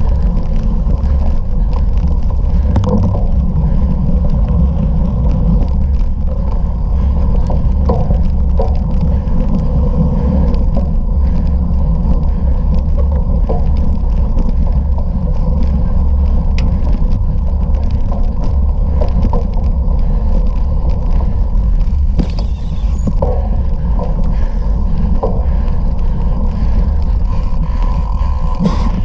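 Bicycle ridden fast over rough ground: a loud, steady low rumble of wind and tyres on the microphone, with scattered rattles and knocks from the bike.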